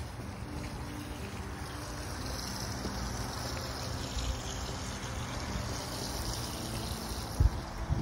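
Water trickling in a backyard column fountain, splashing down into its pebble-filled basin, over a low rumble like wind on the microphone; a sharp low thump near the end.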